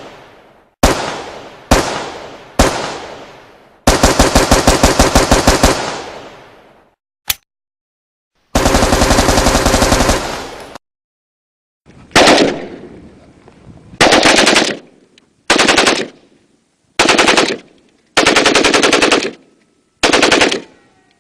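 AK-47 assault rifle gunfire: three single semi-auto shots about a second apart, each ringing out, then a two-second full-auto burst. After a lone sharp crack comes a second two-second burst that cuts off abruptly, then a string of short full-auto bursts about a second and a half apart.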